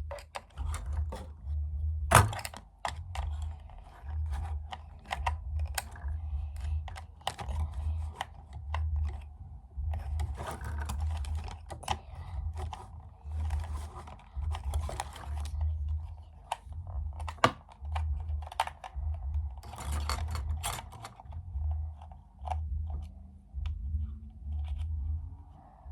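Scattered plastic clicks and taps, with low bumps, from hands handling a small drone while its removable battery is worked out.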